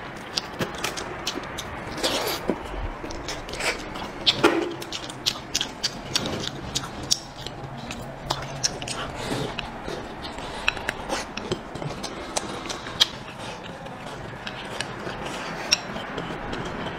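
Close-miked wet chewing, lip smacking and sucking while eating braised chicken feet, with many small clicks and a few louder bites.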